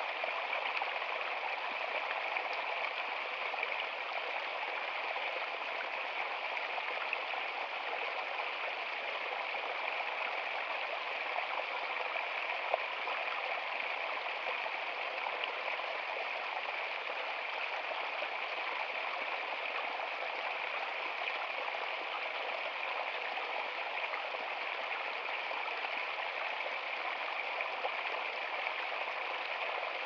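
Small woodland stream splashing and trickling over rocks in a little cascade, a steady light rush with no deep rumble.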